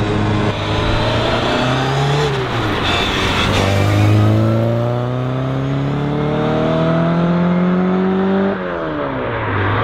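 Classic Mini Cooper S rally car's A-series four-cylinder engine accelerating, with a brief rise and fall in pitch around two seconds in. It then climbs steadily through one long pull from about four seconds in and drops sharply near the end.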